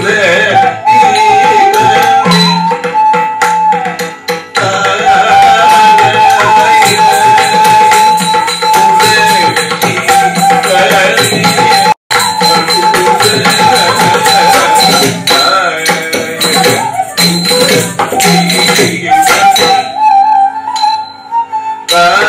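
Carnatic music for a Bharatanatyam varnam in raga Dhanyasi: a wavering melody line over hand drumming, with sharp strikes of the nattuvangam cymbals. The sound cuts out for an instant about halfway.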